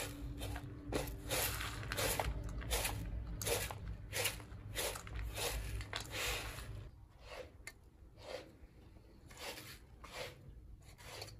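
A hand sweeping and rubbing through dry raw rice grains in a plastic bowl, a run of short rustling swishes about two a second that grow softer in the last few seconds.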